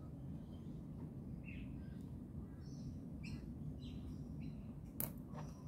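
Faint bird chirps scattered over a low steady hum, with a sharp click near the end.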